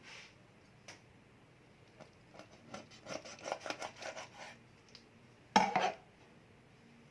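Kitchen utensils being handled: a few light clicks, then a run of quick scraping, scratching strokes, and one loud clatter near the end.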